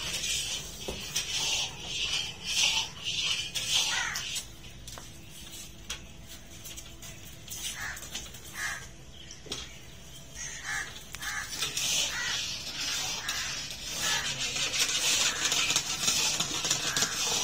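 Long metal rod stirring a milk and flour mixture in a large iron karahi, in repeated scraping, swishing strokes with clinks of metal on the wok, which go quiet for a few seconds in the middle. The mixing dissolves the flour into the milk for sohan halwa.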